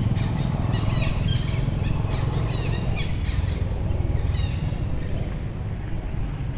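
Steady low wind rumble on the microphone, with a flurry of short high bird chirps from about a second in until about four and a half seconds.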